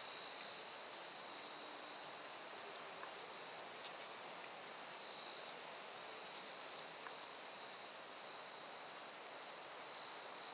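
Crickets or similar insects chirring in a steady high drone over a faint, even hiss. A few tiny clicks sound now and then.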